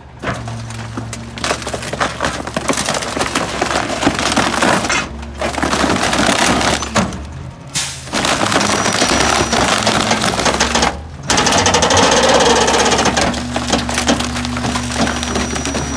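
Rear-loader garbage truck's hydraulic packer blade crushing a leather recliner: the furniture's wooden frame cracks and splinters continuously over the truck engine's steady hum. The crunching drops out briefly three times as the packer cycles.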